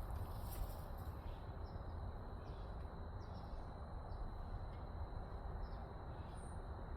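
Low wind rumble on the microphone, with a small bird chirping short high notes about once a second.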